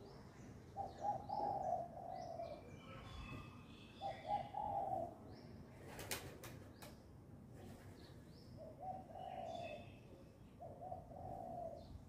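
A dove cooing: four phrases, each a few short notes running into a longer coo, with pauses of a couple of seconds between them.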